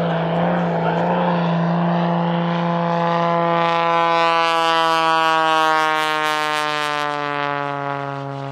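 Aerobatic Pitts S-2S biplane's 400-horsepower engine and propeller running at high power as the plane passes low. The pitch holds at first, then slides steadily down as it goes by, loudest about halfway through.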